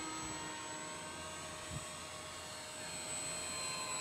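Electric motor and propeller of an RC model plane running under power, a steady high whine with several tones that shift slightly in pitch near the end and then cut off suddenly.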